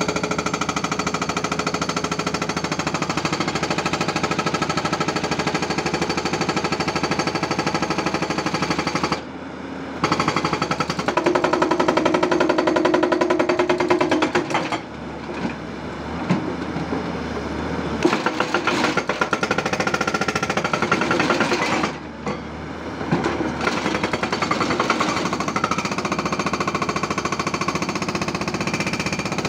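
Hydraulic breaker on a Tata Hitachi 200 excavator hammering in rapid continuous blows, stopping briefly about nine seconds in and again about twenty-two seconds in.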